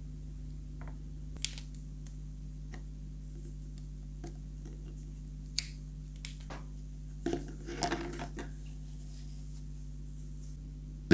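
Scattered light clicks and taps of small objects being handled, with a short cluster of them about two-thirds of the way through, over a steady low hum.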